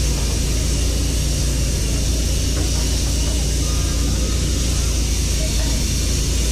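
A steady, loud rushing roar with a deep rumble underneath, unchanging throughout, of the kind made by a large burner or fan in a busy cooking area.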